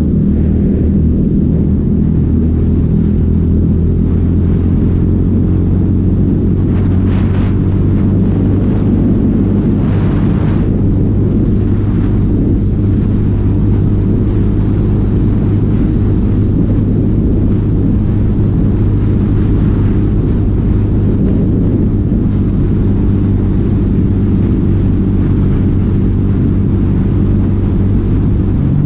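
Yamaha Sniper 150's single-cylinder four-stroke engine running at high, near-constant speed under throttle, a steady drone.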